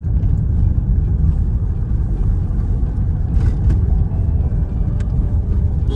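Steady low rumble of a car driving, heard from inside the moving car: road and engine noise, with a few faint clicks about halfway through.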